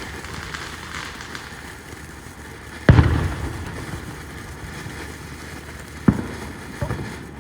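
Fireworks bursting: two loud bangs about three seconds apart, the first the louder, with a smaller pop shortly after the second.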